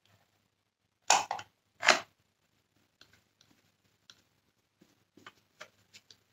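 Hands working a small T8 Torx screwdriver and screw into the plastic cyclone unit of a Dyson Cinetic Big Ball vacuum: two short loud noises about a second apart near the start, then a scatter of faint light clicks of the tool against the plastic.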